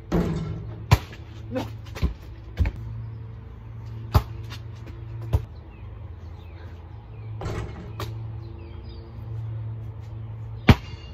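A basketball bouncing and banging on hard ground and the hoop, heard as about seven sharp, irregularly spaced thuds, the loudest near the end, over a steady low hum.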